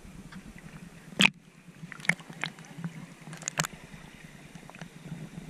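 Water sloshing and gurgling against a waterproof camera housing as it is held at the surface and dipped under. Over a steady low hum there are sharp clicks: the loudest about a second in, and smaller ones at about two and three and a half seconds.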